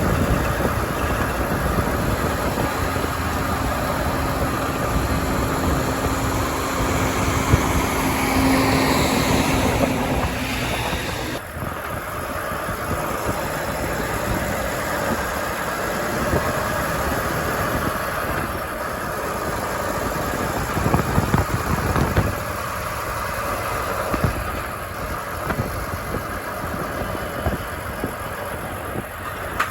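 Steady engine and road noise of a truck driving along a highway. A faint steady tone runs from about three to ten seconds in, and the sound turns duller about eleven seconds in.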